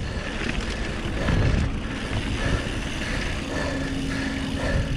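Mountain bike rolling over hard-packed dirt: steady tyre rumble mixed with wind buffeting the camera microphone.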